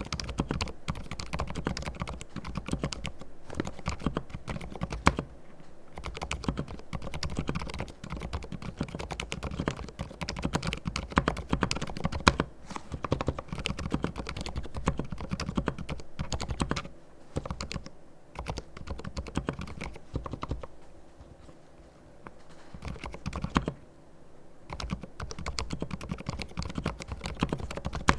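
Typing on a Dugod & Thinkway Toche F mechanical keyboard fitted with fully lubricated silent red linear switches: a fast run of soft, muted keystrokes. The typing thins out and grows quieter for a few seconds in the second half, then picks up again.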